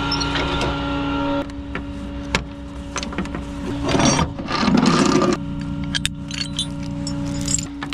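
A tow truck running with a steady hum while a steel winch chain and hook rattle and clink as they are handled. A louder scuffing rush comes about four seconds in.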